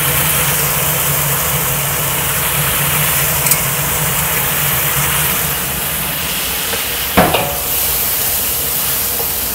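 Prawns sizzling as they fry in oil and chilli paste in a stainless-steel wok, stirred with a wooden spatula, over a steady low hum. A brief sharp knock about seven seconds in.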